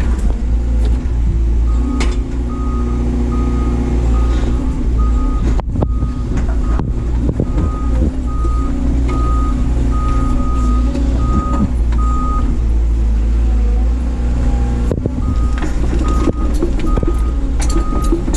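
Doosan DX180 excavator's diesel engine running steadily at working revs, heard from the cab. A backup alarm beeps at one pitch, about three beeps every two seconds, breaking off for a few seconds past the middle and then starting again.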